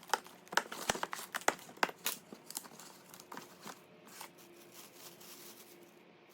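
Packaging being handled and unwrapped: irregular crinkling and rustling with scattered sharp clicks and knocks, busiest in the first few seconds and thinning out after.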